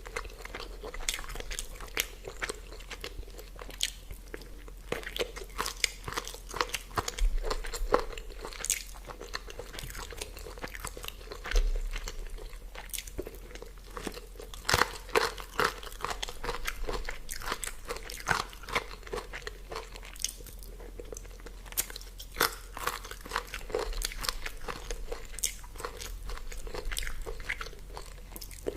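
A person chewing and biting food close to the microphone: many irregular crunches and mouth clicks.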